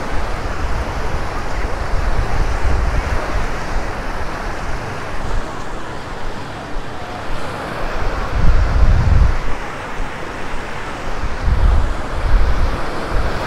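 Small, calm sea waves breaking and washing up a sandy shore, a steady hiss of surf. Wind buffets the microphone in low gusts, strongest about eight to nine seconds in and again near the end.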